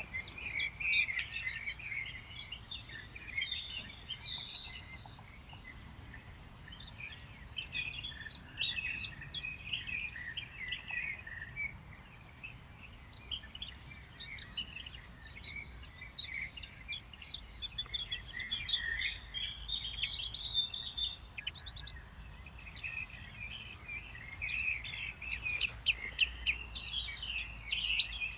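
Small songbirds singing: dense, fast chirps and trills, with a low rumble beneath.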